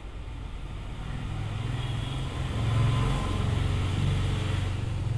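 A low rumble that grows louder about two seconds in and stays up.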